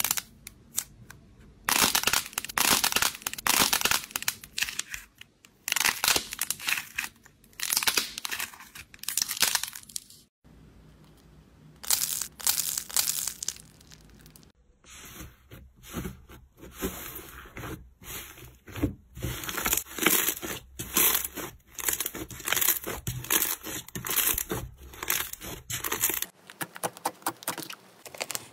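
Hands squeezing and kneading slime and clay-coated squishy toys, giving crackling and crunching sounds in short, uneven bursts, with a hardened clay shell cracking as it is crushed. The sound changes abruptly a few times.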